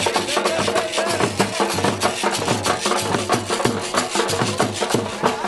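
Music with a fast, steady percussion beat and a wavering melody line over it.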